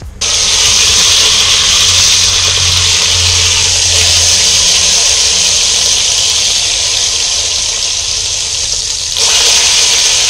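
Beef sirloin tip roast searing in a hot cast-iron Dutch oven set directly on burning charcoal: a loud, steady sizzle that starts suddenly as the meat goes in and grows louder again near the end.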